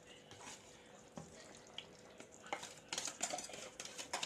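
Spoon stirring yogurt into the chicken and onion masala in the pan: scattered scrapes and clicks, busier in the second half, over a faint sizzle.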